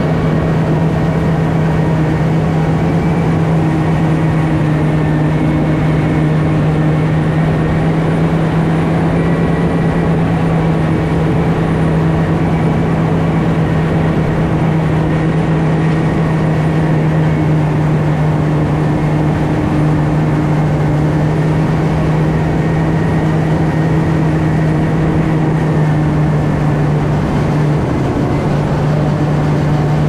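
Self-propelled forage harvester and tractor running steadily under load while chopping corn silage: a constant low engine hum over a dense mechanical rush, with a slight shift in the hum near the end.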